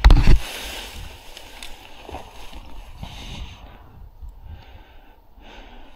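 A few heavy bumps against the body-worn camera at the start, then soft rustling of grass and clothing with light scuffing steps as a player moves through vegetation into a wooden bunker.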